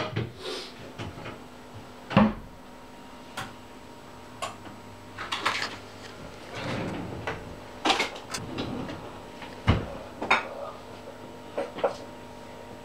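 Irregular clicks, knocks and short rustles of paper and cards being handled on a table, about a dozen in all, over a faint steady hum.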